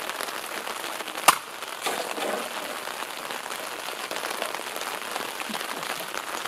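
Steady rain falling throughout. About a second in, one sharp smack as a sword blade strikes a plastic water jug, followed by a brief splash of water.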